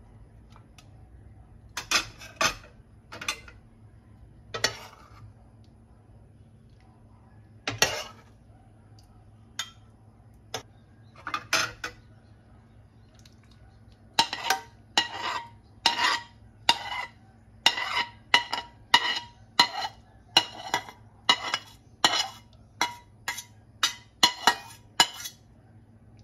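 Metal ladle scraping and clinking against a stainless steel pan as a creamy sauce is scraped out of it. At first a few scattered strokes, then from about halfway a quick run of scrapes, nearly two a second.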